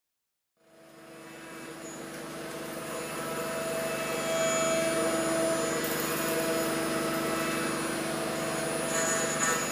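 CNC router spindle milling a metal plate: a steady whine over cutting noise, fading in about half a second in and growing louder over the next few seconds, with a thin high squeal that comes and goes.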